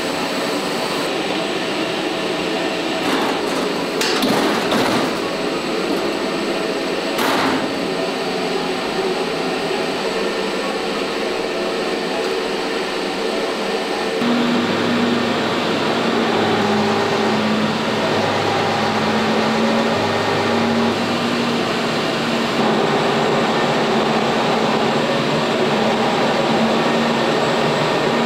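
HP Multi Jet Fusion 3D printer and its extraction fans running with a steady mechanical hiss and hum. A few knocks come in the first eight seconds as the build unit goes into the printer. From about halfway a low hum starts, cutting in and out in stretches as the printer initializes and warms up.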